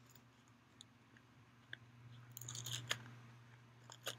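Small paperboard milk carton being pried open by hand: faint crinkling and tearing at the spout, with a short burst of crackling about two and a half seconds in and a sharp click near the end.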